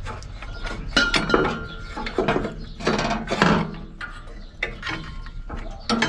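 Hand tools and metal parts clinking and clanking irregularly as an air-conditioner outdoor unit is worked on and taken apart; one clank about a second in rings on for about a second.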